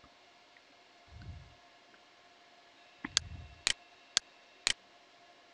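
A faint low thump, then four sharp clicks about half a second apart from a computer mouse being clicked at the desk.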